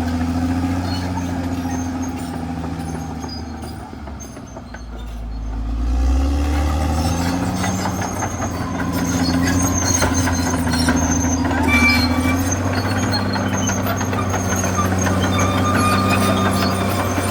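CAT D6R XL crawler bulldozer's diesel engine running steadily under working load. The engine note drops and fades about four seconds in, then picks back up about six seconds in. From then on it is joined by metallic clatter and squeaks from the tracks.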